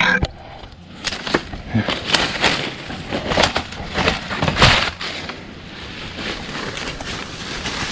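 Dry leaves and twigs crackling and snapping: a quick run of sharp cracks for a few seconds, then dying down.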